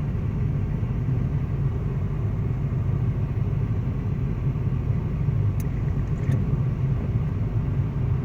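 Steady low rumble of a motor vehicle running close by, even throughout, with a couple of faint ticks; it cuts off abruptly at the very end.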